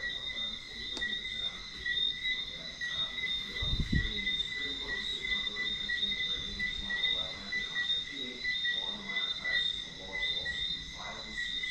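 Crickets chirping in a steady, continuous high trill, with a fainter second tone above it, and a single low thump about four seconds in.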